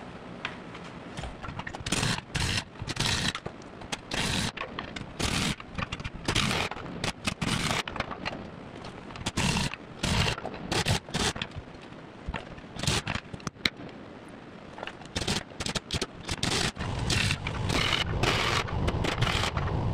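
Pneumatic impact wrench firing in many short, irregular bursts, some under half a second, as it runs nuts down on the bolts that fasten steel crossbars to a snowcat's rubber track belting.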